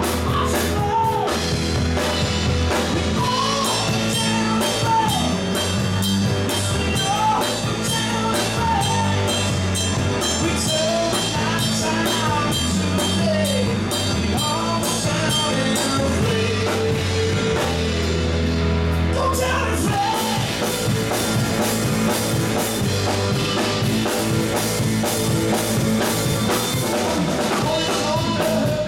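Live rock band playing: electric guitars, electric bass and drum kit with a steady beat, and a singer at the microphone.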